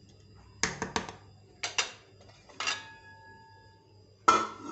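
Clanks and knocks of a cooking pot being handled: three clusters of short knocks, one leaving a brief metallic ring, then the lid set down on the pot with the loudest clank near the end.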